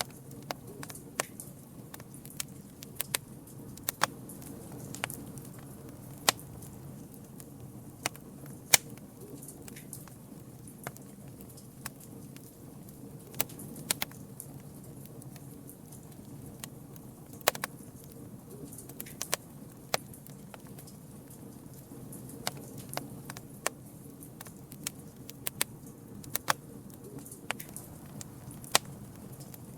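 Wood campfire crackling, with irregular sharp pops and snaps, a few of them loud, over a low steady background.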